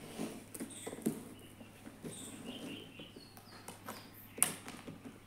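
Hands taping a cardboard box: soft scratching and rustling of tape and cardboard with scattered light clicks, and one sharper snap about four and a half seconds in.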